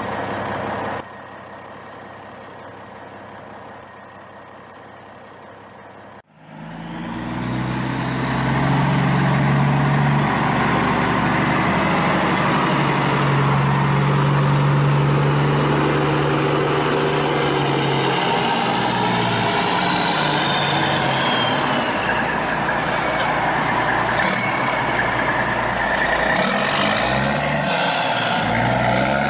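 Truck engine running: quieter at first, cutting out briefly about six seconds in, then swelling up and running loud and steady. In the second half a high whine slowly falls in pitch.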